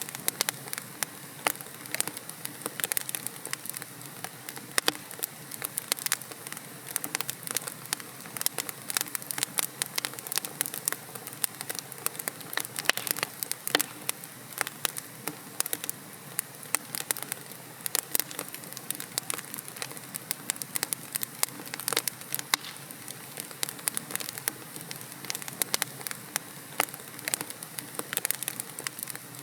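Wood logs burning in a fireplace, crackling and popping in quick, irregular snaps over a steady soft hiss of the flames.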